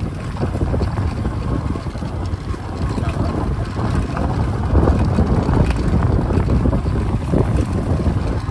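Wind buffeting the microphone from riding along at speed, a steady low rumbling noise.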